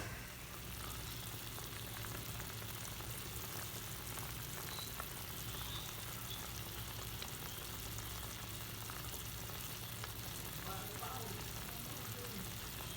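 Pot of chicken tinola soup simmering on a low flame: a steady, faint bubbling hiss with a low hum underneath.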